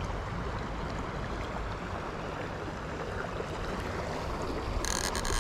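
Shallow stream riffle rushing steadily past, heard close to the water. A brief high-pitched buzz comes in near the end.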